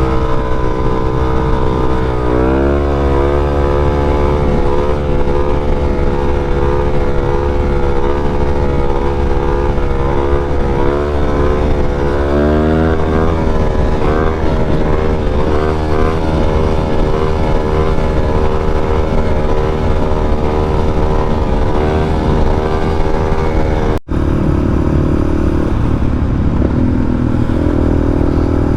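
Motorcycle engine running under way, with the steady pitch of its note dipping and climbing back twice, about two seconds in and again near thirteen seconds. Near the end it cuts to a lower, steadier engine note.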